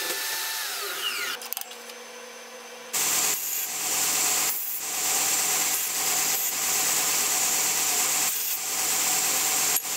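A DeWalt portable band saw whines, then winds down with a falling pitch about a second and a half in. About three seconds in, a belt grinder starts grinding a small steel bar, a loud rushing hiss with a few brief dips as the steel is lifted off and pressed back on.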